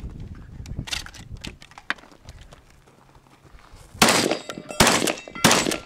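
Three shotgun shots about half a second apart, starting about four seconds in, fired at steel targets, with a metallic ring hanging after each shot.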